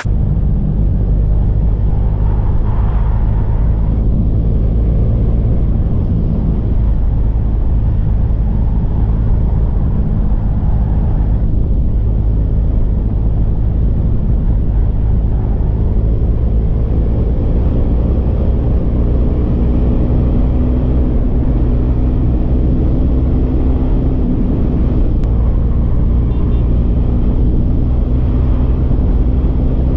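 Motorcycle engine running steadily at highway speed, with heavy wind rush on the microphone.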